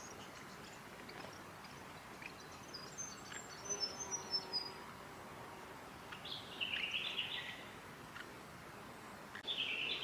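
Small songbirds calling: a run of high, thin notes stepping down in pitch about three seconds in, then a lower chattering call at about six seconds and a short one near the end.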